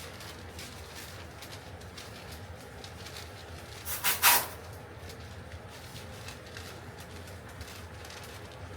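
Masking tape and paper being handled by hand: faint rustles and small ticks, with one short, loud ripping sound about four seconds in, typical of tape being pulled off the roll.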